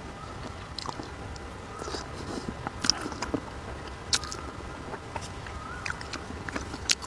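A person eating a meal of fish soup and rice at close range: chewing and mouth sounds, with scattered short sharp clicks every second or so.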